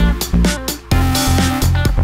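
Electronic dance music with a steady beat, a heavy bass line and held synth notes.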